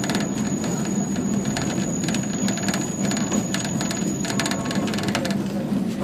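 Alishan Forest Railway train running on its 762 mm narrow-gauge track: a steady low rumble with many irregular clicks and rattles from the wheels, and a thin high-pitched wheel squeal on the curve that stops near the end.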